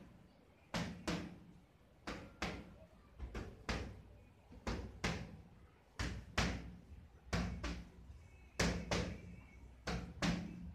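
Boxing gloves hitting focus mitts in quick combinations: some twenty sharp slaps, mostly in pairs a fraction of a second apart, with short gaps between combinations.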